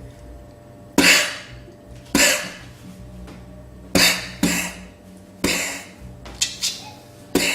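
A man imitating silenced gunshots with his mouth: about eight short, sharp bursts of breath, some coming in quick pairs.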